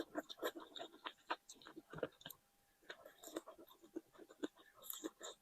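A person chewing food close to the microphone: quick, irregular wet clicks and smacks, with a brief pause a little past halfway.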